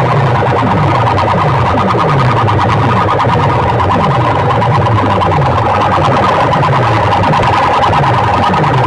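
Loud, distorted electronic track over a competition sound system: a falling bass sweep repeating about every two-thirds of a second, under a steady siren-like tone.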